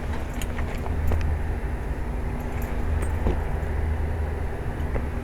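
Air-conditioning condensing unit running steadily outdoors, a constant low hum with a steady tone over it.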